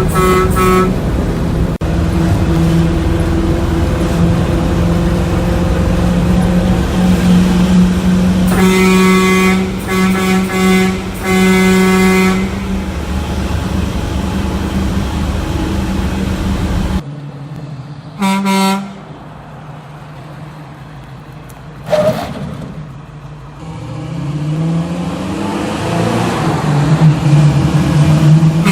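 Semi-truck air horn sounding about six blasts from its pull-chain valve: a short one at the start, three close together about nine to twelve seconds in, another short one near eighteen seconds, and one starting at the very end. Between the blasts a steady mechanical hum runs and cuts off suddenly a little past halfway. Later comes a sharp click and a hum that rises in pitch.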